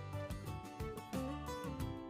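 Background instrumental music: a melody of short notes changing every fraction of a second over a steady low bass.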